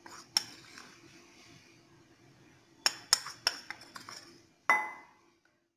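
Kitchenware clinking and tapping against a glass mixing bowl as flour is tipped in from a cup: a few light taps at first, a quick run of about four taps around three seconds in, and a louder clink near the end with a short ring.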